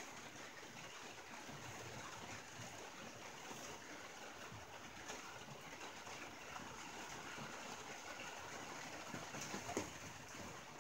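Rain falling steadily on a tin roof: an even hiss of rain with scattered sharper drop ticks, one louder drip nearly ten seconds in.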